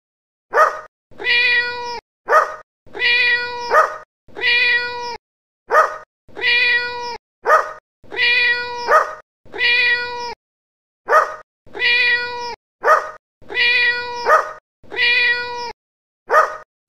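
Timer alarm of recorded pet sounds signalling time is up: a short sharp dog yelp alternating with a longer cat meow, the pair repeated over and over in a loop. It starts about half a second in.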